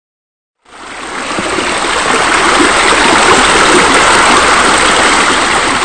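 Water running and splashing steadily, the sound of a pool's spa spillover and deck jets. It fades in about a second in.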